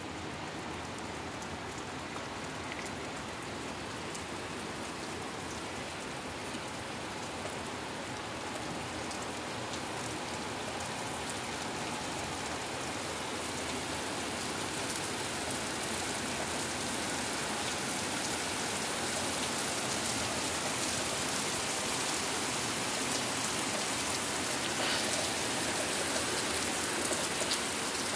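Heavy rain falling steadily, growing gradually louder over the stretch.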